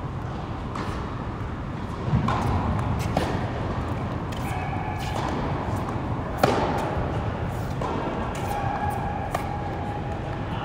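Tennis rally on an indoor hard court: sharp pops of racket strikes and ball bounces, echoing in a large hall. The loudest hit comes about six and a half seconds in, over a steady low hum.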